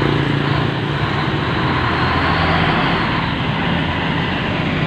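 Shacman heavy truck's diesel engine running steadily as the tractor unit with its loaded flatbed semi-trailer pulls slowly past close by, with a steady hiss of tyres on the wet road.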